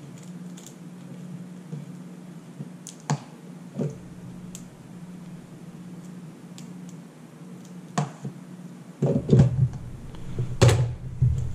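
Scattered small clicks and light rustling of hands handling laptop parts and tape while refitting the display cable and screen panel, with a steady low hum underneath. The handling grows busier and louder near the end.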